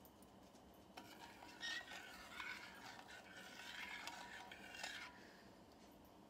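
Faint scraping and stirring of a spoon in a saucepan of brown-sugar caramel sauce, a run of small scratchy strokes from about a second in until about five seconds in.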